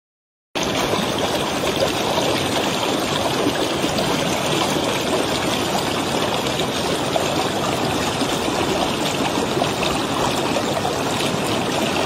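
Stream water flowing, a steady, even rushing that starts suddenly about half a second in.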